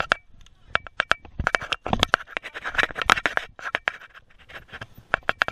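Mountain bike clattering over rough trail: irregular sharp rattles and knocks from the bike over bumps and a wooden plank bridge, with a stretch of tyres scraping on loose dirt about two seconds in.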